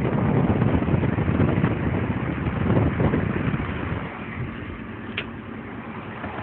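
Steady road and wind noise of a car driving, picked up from inside the car; the noise drops in level about four seconds in, and a single short click comes about a second later.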